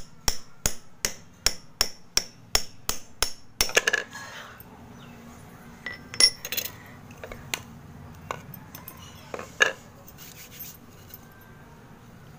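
A small metal hammer tapping the spine of a knife wedged into a slab of dry Fuller's earth (multani mitti), about ten sharp metallic taps at about three a second, then a short crumbly crack as a layer splits off. After that, scattered clicks and scrapes of dry clay pieces being handled and set down.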